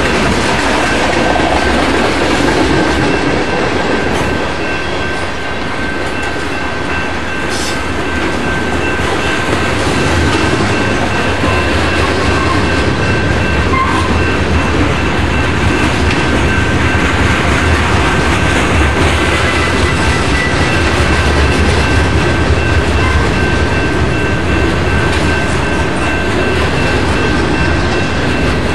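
Freight cars (tank cars, covered hoppers and boxcars) rolling past at speed: a loud, steady rumble of steel wheels on rail, with a thin steady high whine over it.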